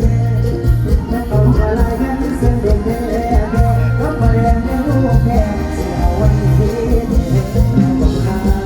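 Live mor lam band music: a steady deep bass beat under a melodic lead line, with some singing.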